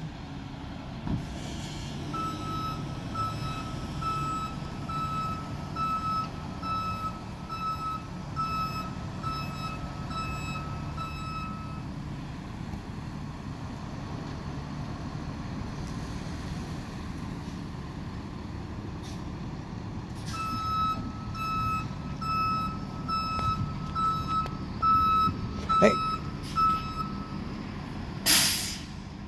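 A truck's reversing alarm beeping steadily over its running engine, in two runs of evenly spaced beeps: one of about ten seconds, then after a pause another of about seven seconds. A knock comes just before the second run ends, and a short hiss of air follows near the end.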